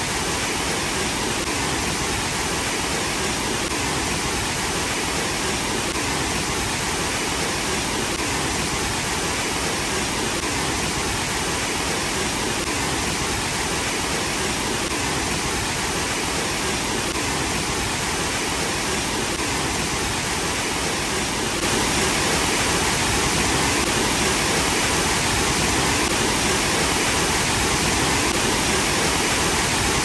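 Water cascading down tiers of concrete steps into a sunken pool, a steady dense rushing roar of falling and splashing water. It grows slightly louder and brighter about two-thirds of the way through.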